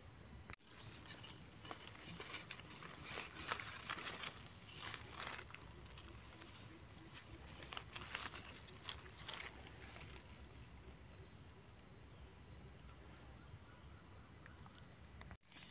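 Steady high-pitched chorus of insects singing in the forest, with faint scraping and rustling as a knife digs mushrooms out of soil and dry leaves.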